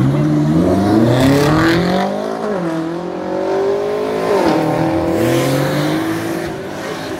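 A sports car accelerating hard away. The engine's pitch climbs, then falls sharply at an upshift about two and a half seconds in, climbs again, falls at a second upshift a little past four seconds, and then runs at a steadier pitch.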